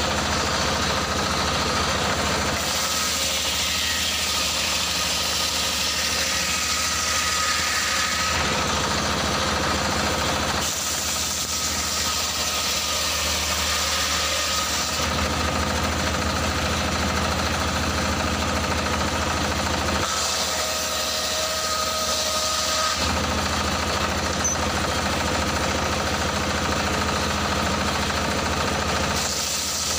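Circular saw of a small sawmill, driven by a stationary engine that runs steadily throughout, ripping lengthwise through logs in several passes. Each cut adds a loud hiss and a thin whine over the engine drone, and these ease off between passes.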